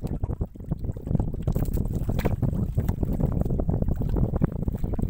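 Water splashing and spraying off a wet gill net as it is hauled hand over hand aboard a small outrigger boat, with irregular splashes and knocks over a steady rumble of wind on the microphone.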